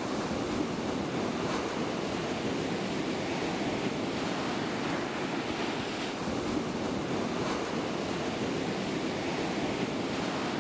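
Ocean waves, an even, steady rushing of surf.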